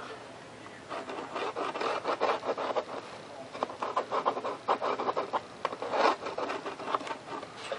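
A pen drawing a line along a ruler on the foam airframe: a run of short, scratchy rubbing strokes, one after another.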